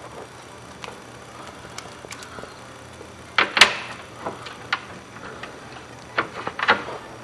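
Scattered clicks and knocks of hand tools and metal parts being worked inside a pickup truck's door, with a pair of louder knocks about three and a half seconds in and another pair a little after six seconds.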